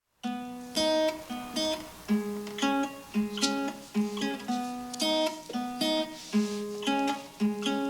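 Background music: an acoustic guitar picking single notes in a gentle, repeating pattern.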